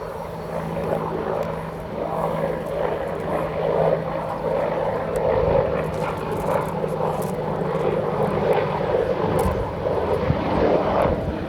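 An Army Air Corps WAH-64D Apache attack helicopter in display flight, its main rotor and engines giving a continuous drone. A steady low hum under it drops away about halfway through.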